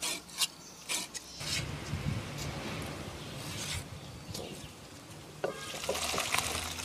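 A knife chopping cooked lamb offal on a wooden chopping block, a few sharp knocks, then a steady rushing noise. Near the end, broth is poured into a clay pot.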